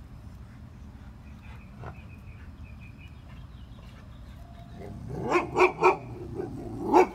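A dog barking: three quick barks in a row about five seconds in, then one more near the end.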